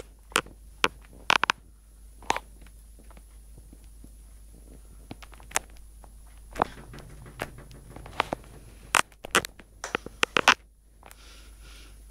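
Handling noise from a handheld camera: irregular sharp clicks and knocks, with a brief low hum about halfway in and a quick cluster of clicks near the end.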